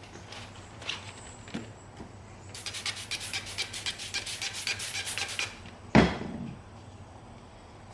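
Rapid scrubbing strokes of a brush worked over a leather ball glove, about ten a second for some three seconds. A single loud thump follows about six seconds in.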